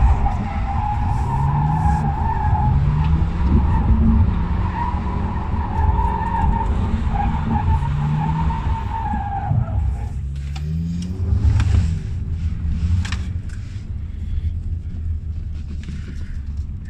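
Jaguar XF drifting, heard from inside the cabin: a long tyre squeal that wavers in pitch over the engine revving up and down. The squeal stops about ten seconds in, and the engine keeps rising and falling after it.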